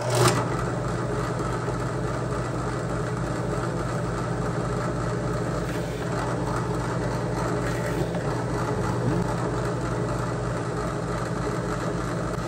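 Drill press motor running steadily, with a hole punch turning in its chuck.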